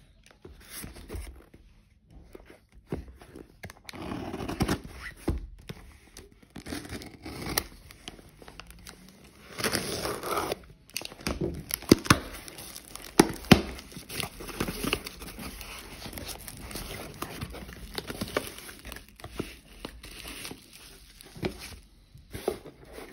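A cardboard shipping box being opened by hand: packing tape tearing and cardboard scraping and rustling in irregular bursts, with a few sharp snaps about halfway through. Bubble wrap crinkles near the end.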